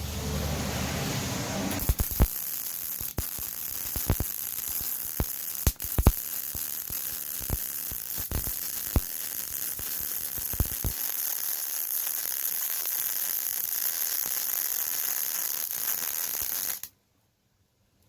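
A Yeswelder MIG-Pro250 MIG welder runs a long bead on beveled 5/16-inch steel plate: a steady crackling sizzle of the arc, struck about two seconds in and peppered with scattered sharp pops. It cuts off suddenly near the end as the trigger is released.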